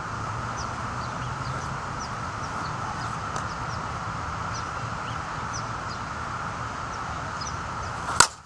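Small birds chirping in the background, then near the end one sharp crack of a softball bat hitting a slowpitch softball.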